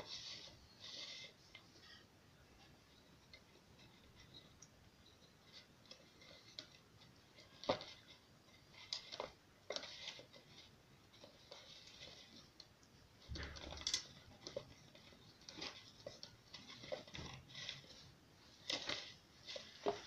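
Faint, irregular clicks and rustling from hands handling two metal spoons, small wooden sticks and thread as they are fitted together, with a few sharper clicks now and then.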